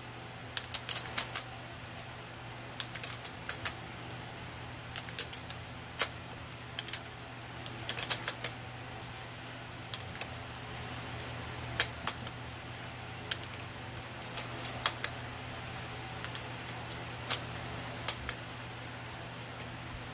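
Small metallic clicks and snaps as empty brass cartridges are pushed one by one into the side loading gate of an Umarex Winchester Model 1894 CO2 BB rifle. The clicks come irregularly, often two or three close together.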